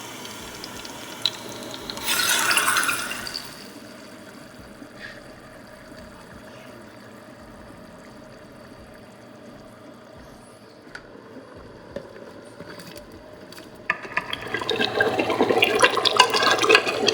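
Water in a kitchen: a short rush of water about two seconds in, a quieter stretch, then from about fourteen seconds a louder, steady crackling rush of water.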